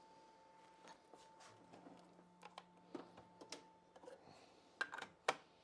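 Faint scattered taps and clicks of a board being handled on a CNC router table, over a faint steady hum. Two sharper knocks come near the end.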